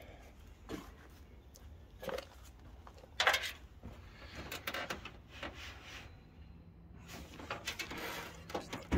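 Scattered light knocks and rubbing from handling around the engine bay, with a hand brushing the bare metal of the bulkhead; the loudest is a short sharp sound about three seconds in.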